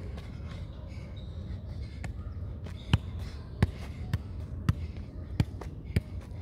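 A soccer ball being juggled, each touch off the player's foot or knee a short dull thud. The touches come sparsely at first, then about every half second to three quarters of a second from about two seconds in.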